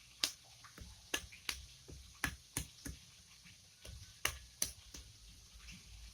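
About ten sharp, irregular knocks and clicks of hand work in a kitchen, spaced roughly a third to half a second apart with short pauses.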